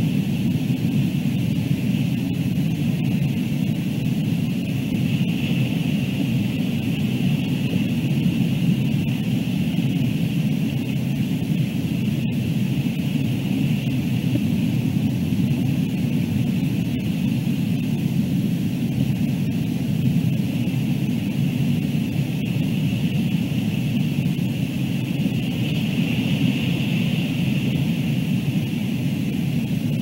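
Steady low wind rumble with a fainter higher hiss on an outdoor camera microphone, unchanging throughout.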